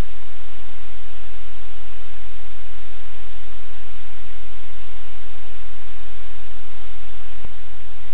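Loud, steady hiss over a low hum, with a single short click about seven seconds in.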